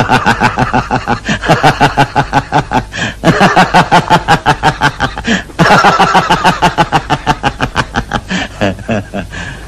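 A man laughing long and loud, a rapid run of 'ha-ha-ha' pulses at about five a second, in three long stretches with brief breaks for breath.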